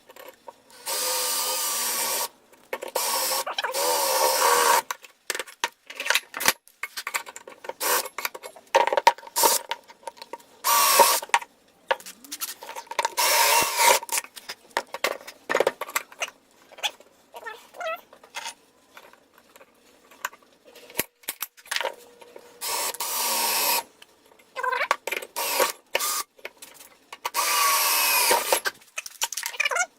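A handheld power tool running in repeated short bursts of one to two seconds, its pitch wavering under load. Between the bursts, metal parts click and knock as they are handled.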